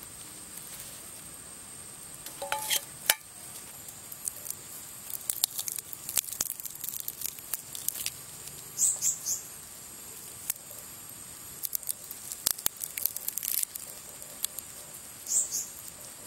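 Crackling and crunching of the charred, ash-crusted skin of a tuber roasted in campfire embers as it is handled and broken open by hand, in scattered bursts of sharp clicks.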